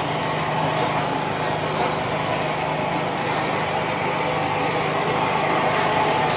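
Battle of Britain class steam locomotive 34081 running slowly tender-first, a steady mechanical rumble over a low, constant hum, growing slightly louder toward the end.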